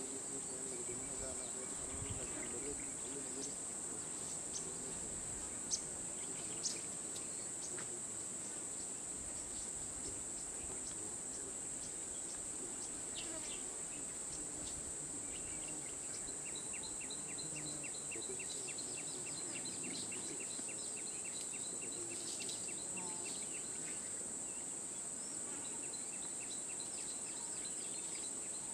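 Steady high-pitched drone of insects in forest scrub, with a bird calling in rapid runs of repeated notes in the second half. Two sharp clicks a second apart come about six seconds in.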